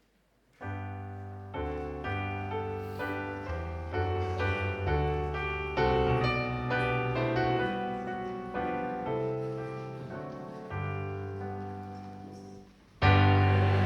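Piano playing a slow, chordal hymn introduction, each chord struck and left to ring. About a second before the end the music comes in markedly louder as the hymn itself begins.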